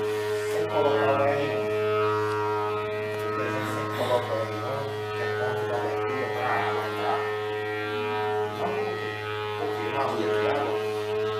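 A didgeridoo plays one continuous low drone throughout. Its overtones keep shifting in colour as the player shapes the tone with mouth and voice.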